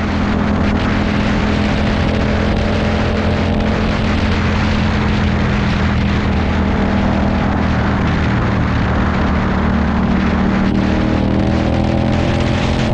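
A small motor running steadily at a constant speed, with a slight change in pitch near the end.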